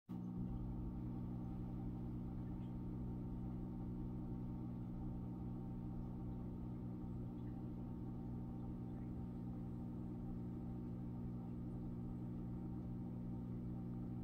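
Steady low electrical hum of several pitches at once, unchanging throughout, typical of a reef aquarium's pump or powerhead motor.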